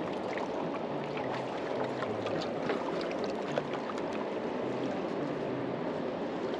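Steady rushing outdoor noise of river water and wind at the bank, with faint scattered ticks.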